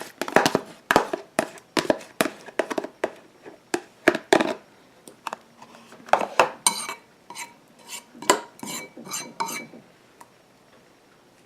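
A spoon scraping round the inside of a bowl and clinking against it, then a run of about eight quick taps on the bowl that each ring briefly.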